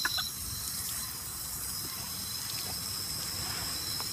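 Garden hose spraying a stream of water onto a dog and the wet patio stones, a steady splashing hiss.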